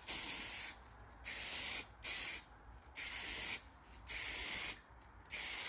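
Aerosol can of matte lacquer spraying in about six short bursts, each roughly half a second long, with brief pauses between them.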